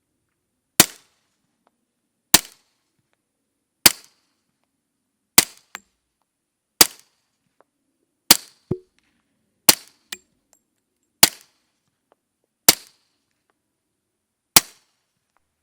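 Suppressed pistol shots through a Rugged Suppressors Obsidian 45 suppressor: ten sharp reports, evenly paced about one every second and a half, with a few faint clicks after some shots.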